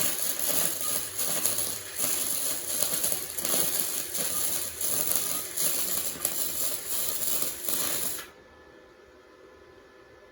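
Flux-core arc welding on 16-gauge mild steel with a Titanium Easy-Flux 125 welder: the arc gives a steady, dense crackle, which stops abruptly about eight seconds in.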